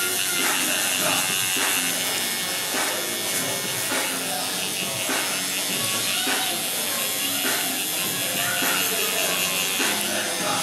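Tattoo machine buzzing steadily as the needle colours in skin, with music playing throughout.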